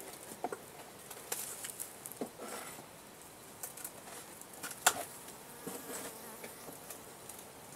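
Honey bees buzzing, with scattered light clicks and knocks; one sharp click about five seconds in is the loudest sound.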